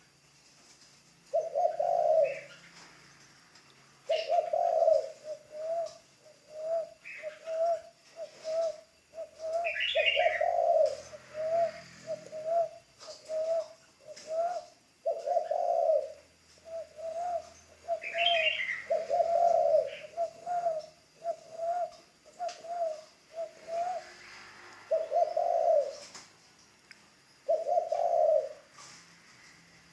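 Spotted dove cooing: loud, low coos every few seconds, with runs of short, quick coo notes in between through the middle. Brief higher chirps from another small bird come now and then.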